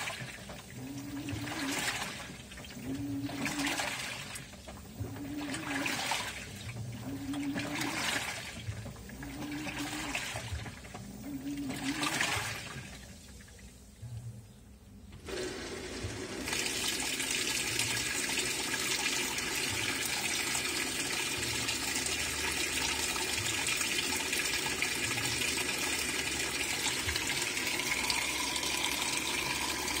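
LG 18 kg washing machine on its rinse cycle, agitating the load in water: a short motor whine and swish of water about every two seconds. After a brief pause about 13 seconds in, water starts pouring in steadily to fill the tub to a higher level.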